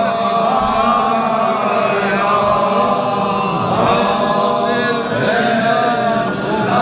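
A group of men chanting together, many voices overlapping in long held notes that rise and fall.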